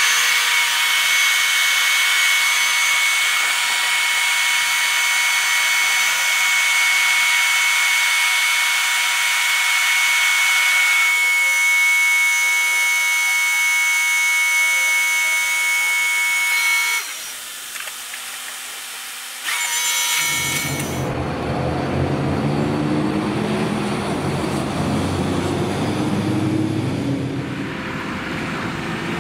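Hydraulic drive of a Bronto Skylift F32 TLX aerial platform whining steadily while the boom and basket move: a loud, high whine of several steady tones that shifts about eleven seconds in and stops around seventeen seconds. After a short quieter gap, the diesel engine of a MAN fire engine runs low as the truck drives along.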